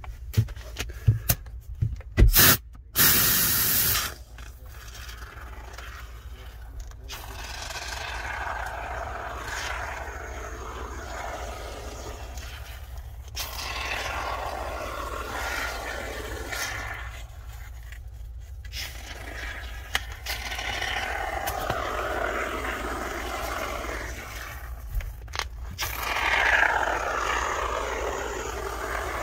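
Can of spray foam sealant being handled and dispensed into gaps in a wall: a few sharp clicks at the start, a loud hiss about three seconds in, then a long stretch of uneven scraping and rubbing as the can and its straw are worked along the cracks.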